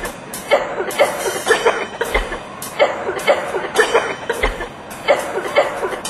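A soundtrack of human coughs: short hacking coughs, about two a second, repeated in a loose rhythm like music.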